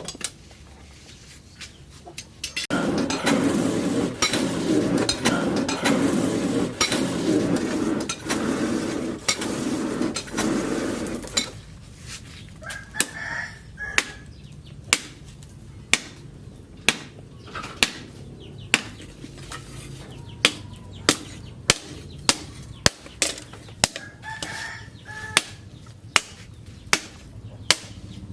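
Hand hammer striking hot steel on an anvil, single sharp blows about once a second through the second half, after about nine seconds of a loud steady rushing noise. Chickens clucking in the background.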